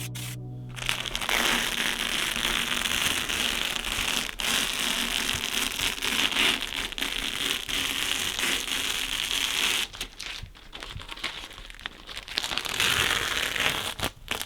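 Stone chip paint being sprayed: a steady hiss that starts about a second in and runs for about nine seconds, then comes in short, broken spurts near the end. Background music fades out just at the start.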